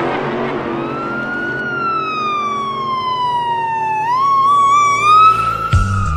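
Police car siren wailing: a long rise and slow fall in pitch, switching about four seconds in to a quicker wavering yelp that climbs and falls again. A bass beat comes in near the end.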